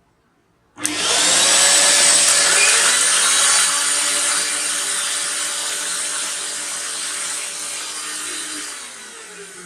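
A vacuum cleaner and a mixer grinder running together, switched on abruptly about a second in: a loud, steady high motor whine over rushing air. The level eases off gradually, and near the end the motor pitch drops as they wind down.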